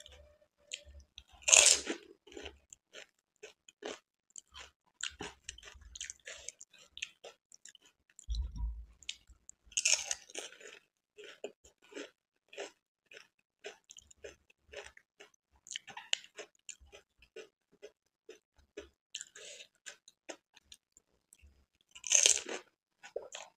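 Close-miked chewing of pani puri: the crisp, hollow puris crackle and crunch in the mouth in a dense run of small clicks, with three louder crunches, about a second and a half in, about ten seconds in, and near the end.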